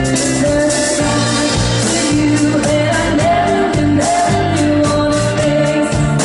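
A band with a lead singer performing a song: sung notes held and wavering over a steady drum beat.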